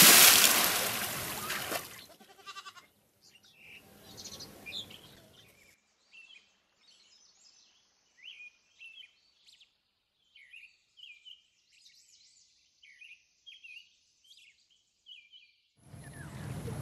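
A heavy splash as a person goes into pond water, loudest at the start and fading over about two seconds. Then, after a quiet stretch, small birds chirp in many short calls.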